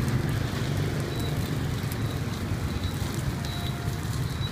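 Steady low engine rumble of street traffic, with a few short, faint high squeaks.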